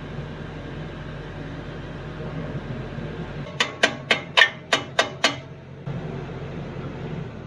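Diesel compact tractor running steadily, with seven quick hammer blows on a steel backhoe bucket pin in the middle, about four a second, each ringing sharply.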